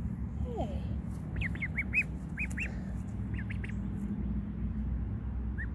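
Ducklings peeping: short, high, arched peeps in quick runs starting about a second in, and again near the end, over a steady low rumble.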